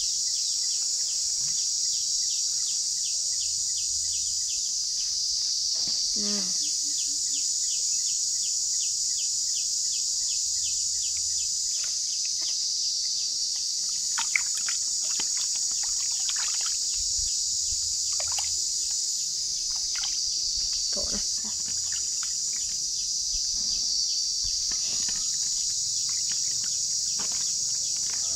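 Steady high-pitched drone of insects, with scattered short bird chirps over it.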